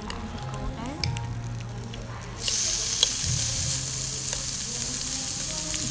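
Slices of marinated beef sizzling on a hot domed tabletop grill pan. A loud, steady hiss starts suddenly about two and a half seconds in, after a quieter stretch with a few light clicks of chopsticks.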